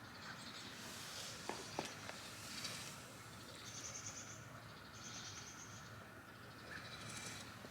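Faint high-pitched trilling chirps from birds, several short trills a second or so apart, with two light clicks about a second and a half in.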